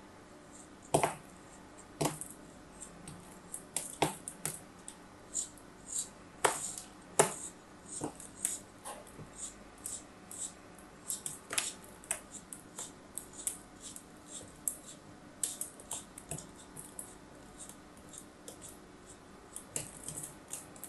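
Small knife blade cutting and scraping through a moulded sand figure, the packed sand giving crisp, irregular crunches and crackles as it crumbles, with a louder cut every second or so.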